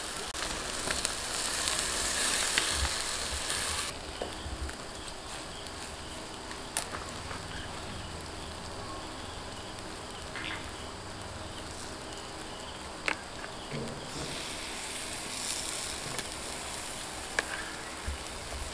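Masala-coated fish sizzling on a wire grill over charcoal embers: a steady hiss with a few sharp clicks. The hiss is louder for the first few seconds, drops at about four seconds, and rises again after about fourteen seconds.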